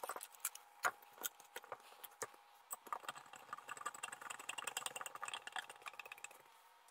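Faint clicking and tapping of hand assembly on an RC truck chassis: plastic suspension parts being handled and a driver turning a screw into the aluminium chassis plate. A few separate clicks at first, then rapid small ticks come thick and fast from about halfway through.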